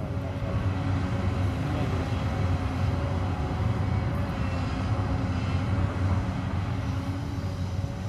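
Hyundai crawler excavator's diesel engine running steadily under load with a steady whine over its low hum, as it digs and lifts a bucket of dirt.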